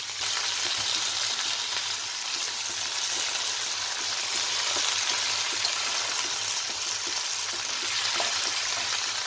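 Chopped tomatoes, coriander stems and dried red chillies sizzling in hot oil in a kadhai as they are stirred with a wooden spatula: a steady hiss with faint small crackles.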